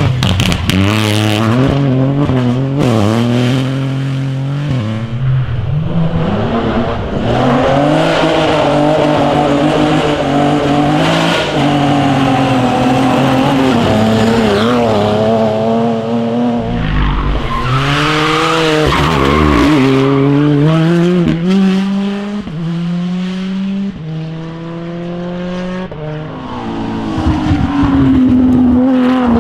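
Rally cars driven flat out on a stage, one after another: engines revving hard and dropping back at gear changes and braking.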